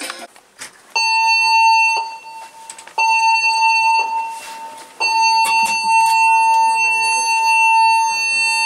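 Cruise ship's general emergency alarm drill signal: two electronic tones about a second long, a second apart, then a long continuous tone from about five seconds in, the short-and-long pattern that calls everyone to their muster stations.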